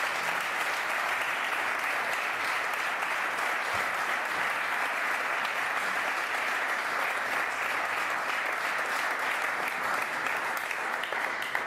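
Audience applauding steadily, dying away at the end.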